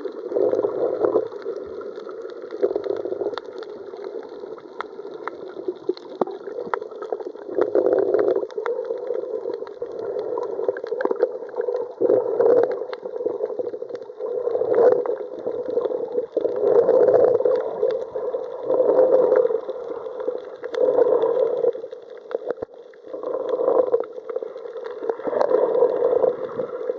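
Muffled water sound recorded underwater: sloshing and gurgling that swells and fades every two seconds or so, with faint scattered clicks.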